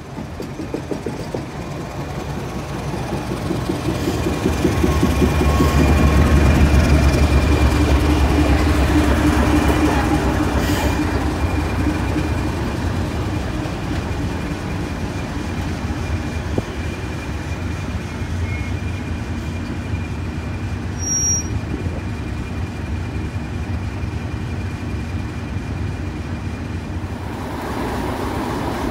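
Train running on the rails: a deep rumble that builds to its loudest about five seconds in and then carries on steadily, with a thin, steady high tone over it until near the end.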